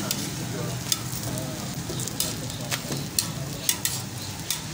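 Lachha parathas frying and sizzling on a large flat griddle, a steady hiss. A metal spatula clicks and scrapes against the griddle about eight times as the cook turns and presses the breads.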